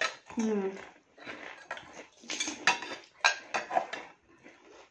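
A metal spoon clinking against steel bowls as pani puri shells are filled: several short, sharp clinks over a couple of seconds.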